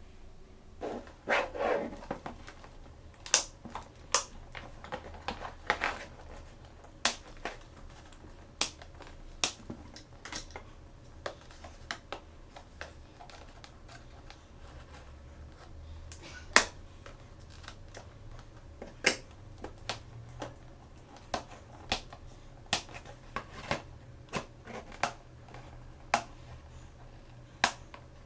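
Small plastic toys and their packaging being handled and opened: scattered sharp clicks and taps, with short crinkling rustles about a second in and again around six seconds in.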